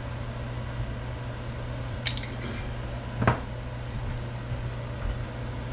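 Light kitchen clinks about two seconds in, then a single sharp knock a second later as a spice jar is set down, over a steady low hum.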